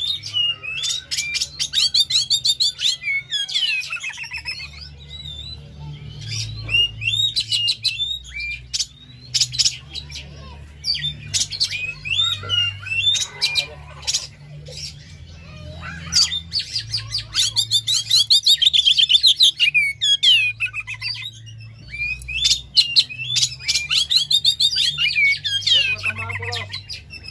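Oriental magpie-robin (kacer) singing: runs of rapid, sharp whistled and chattering notes in several bursts, with brief pauses between them.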